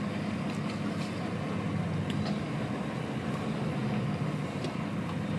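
Truck's diesel engine running steadily at low revs, heard from inside the cab as the lorry pulls slowly away, with a few faint clicks over the hum.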